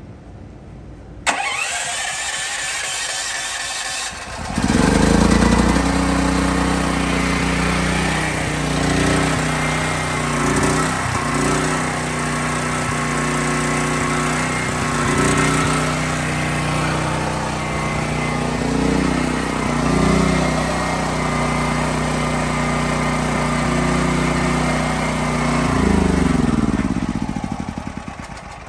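DuroMax XP13000EH tri-fuel generator: the electric starter cranks for about three seconds, then the engine catches and runs steadily on natural gas through a conversion kit. Near the end the engine slows with falling pitch and stops.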